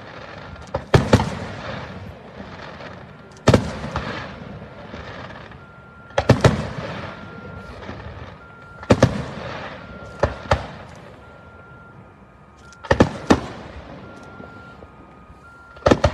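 Aerial firework shells bursting: sharp loud bangs every two to three seconds, several in quick pairs, each trailing off into an echoing rumble.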